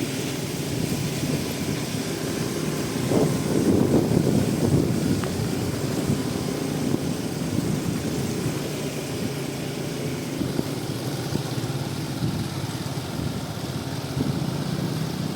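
Aprilia SR 160 scooter's engine running steadily, louder for a couple of seconds about three seconds in.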